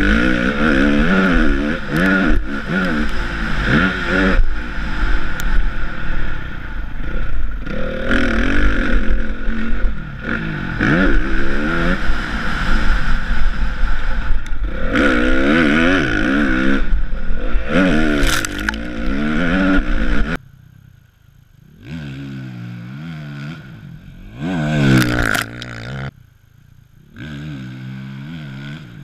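Motocross bike engine revving up and down hard through corners and jumps, heard up close from the bike with a low wind rumble on the microphone. About two-thirds of the way through it cuts to a quieter trackside sound: a motocross bike revving up and down out on the track, briefly louder as it comes nearer.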